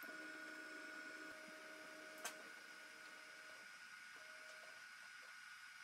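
Stepper motors of an FLSun Super Racer delta 3D printer whining faintly as they drive the print head during its auto bed leveling routine, for about three and a half seconds and again briefly later, over a faint steady high hum. A single sharp click comes about two seconds in.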